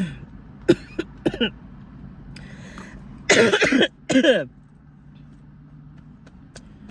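A person's short throaty vocal sounds, two rough bursts about three and four seconds in, of the kind made when chuckling or clearing the throat. A few small clicks come before them, and a low steady hum runs underneath.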